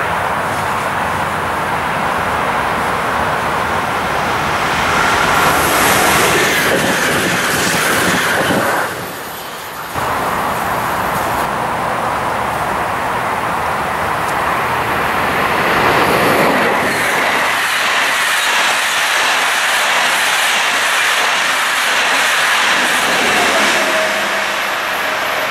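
Electric passenger trains passing close on a curve, with a steady loud rush of wheels on rail and clickety-clack. First a TER 2N NG double-deck regional train; after a short dip in the sound about nine seconds in, a train of Corail coaches.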